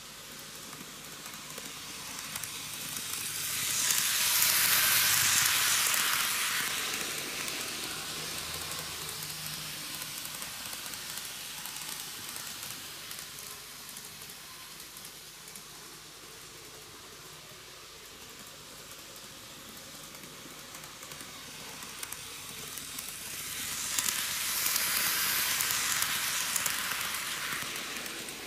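N gauge model train (Micro Ace Meitetsu KiHa 8000 series six-car set) running on TOMIX canted track. Its wheels and motor make a hissing rattle that swells and fades twice as the train comes round close, about four seconds in and again near the end.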